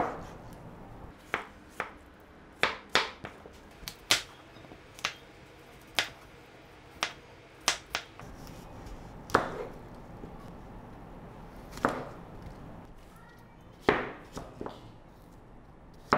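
Kitchen knife cutting peeled apples into small cubes on a wooden cutting board. The blade knocks sharply on the board about fifteen times at an uneven pace, roughly once a second.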